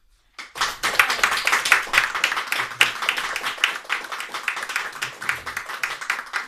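Small audience applauding after a piano piece, the clapping starting abruptly about half a second in and tapering off near the end.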